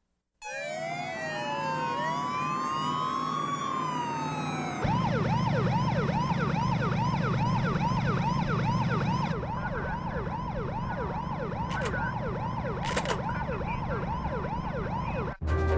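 Cartoon police sirens: several wailing sirens gliding up and down across each other, then from about five seconds in a fast, repeating yelp siren over a low steady rumble. The sound cuts off sharply near the end.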